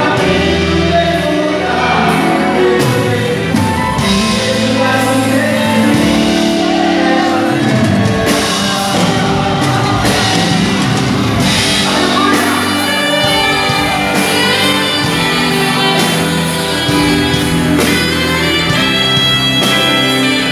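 Live gospel worship music: a band with saxophone, keyboard and drums plays behind singing, with the reverberation of a large hall.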